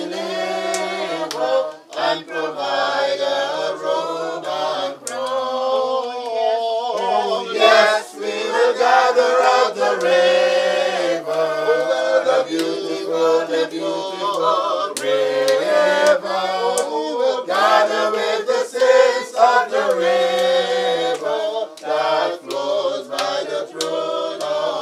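A group of mourners singing a hymn together, unaccompanied, with several voices on a slow melody.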